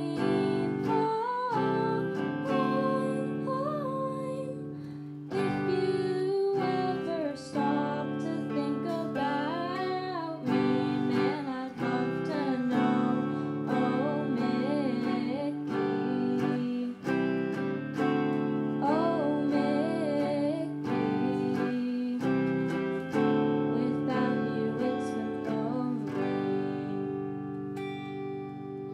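Electric guitar strummed through an amplifier in a song, with a voice singing the melody over the chords.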